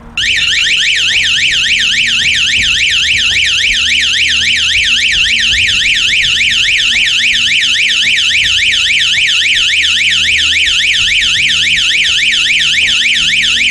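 Small 12-volt electronic alarm siren sounding continuously, its piercing tone sweeping rapidly up and down in a fast, even warble.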